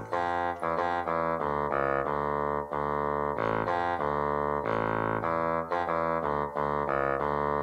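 Keyboard music interlude: a run of held chords changing about every half second, at a steady level.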